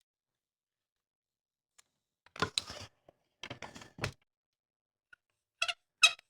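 A few short scratches and ticks of a pencil and layout ruler marking lines on a bowling ball's surface, in small groups after about two seconds of silence.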